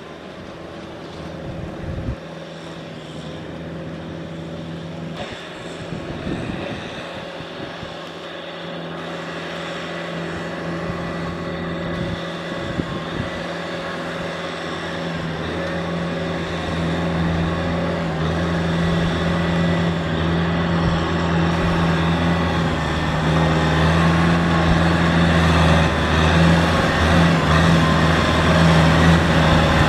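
Kubota M6040 tractor's diesel engine running steadily as the tractor drives along a muddy track, growing louder over the span.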